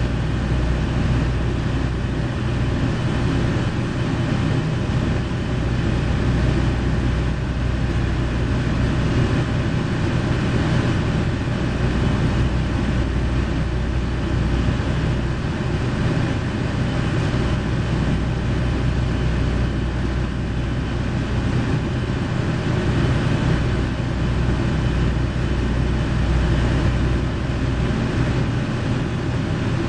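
KiHa 40 series diesel railcar's engine idling steadily with a deep, even hum while the train stands at the platform, heard inside the passenger car.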